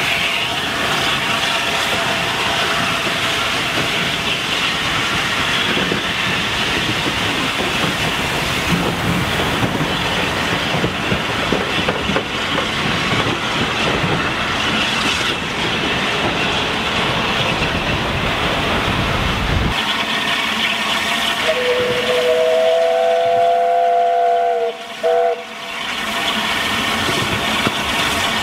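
Train of coaches hauled by LNER A1 Pacific 60163 Tornado rolling past, wheels clicking over rail joints. About 22 seconds in, the locomotive's steam whistle sounds a long chord of two notes, broken briefly near its end.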